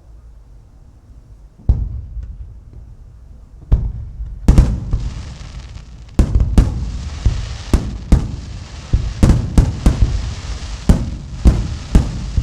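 Aerial fireworks shells bursting over the sea: a lone bang a couple of seconds in, a few more, then from about halfway a rapid volley of sharp bangs, several a second, over a continuous crackle.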